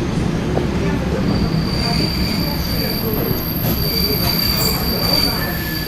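ED9M electric multiple unit running, heard from inside the car: a steady rumble of the wheels on the rails, with a thin high wheel squeal setting in about a second in and holding for several seconds.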